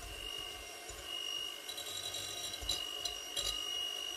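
Electric hand mixer running steadily, its beaters whisking eggs and coconut milk in a glass bowl, with a steady high motor whine and a few brief rattles of the beaters against the glass.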